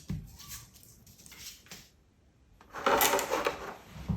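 Unboxing handling noises: packaging rustling in short bursts, with a louder, longer rustle about three seconds in and a soft thump near the end.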